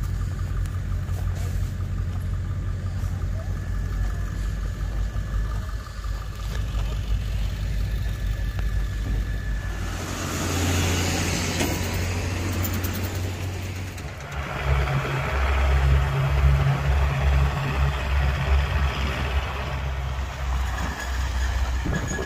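A vehicle engine running steadily. About ten seconds in, tyre noise on gravel comes in, and from about fourteen seconds a truck towing a car on a tandem-axle trailer pulls past with its engine working under load.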